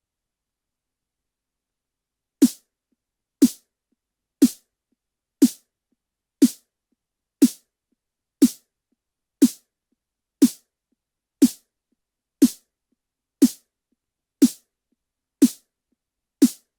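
Synthesized snare drum from Ableton Live's Operator synth, hit once a second, fifteen times after a couple of seconds of silence. Each hit is a short tone that drops slightly in pitch, with a burst of hiss on top, and dies away quickly.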